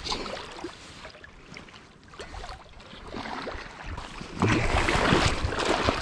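Creek water running, then loud water splashing and churning from about four seconds in.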